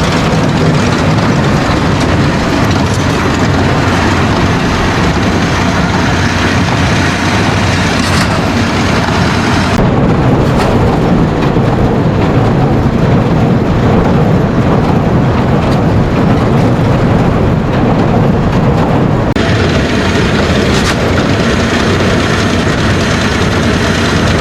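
Farm tractor running under load while pulling a square baler, a steady heavy machine noise. The higher hiss drops away for about ten seconds midway, then returns.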